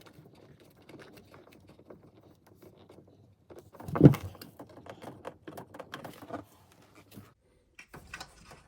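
Small irregular clicks, taps and rattles of a water supply line's compression fitting being worked onto a dishwasher's water-inlet adapter, with one louder knock about four seconds in.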